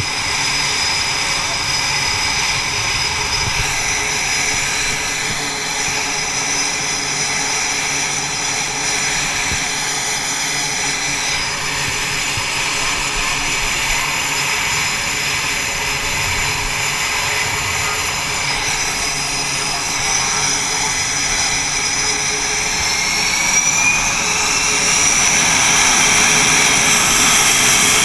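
F/A-18 jet engines running on a carrier flight deck, a loud steady whine with several high tones. Near the end the whine rises in pitch and the noise grows louder as an engine spools up.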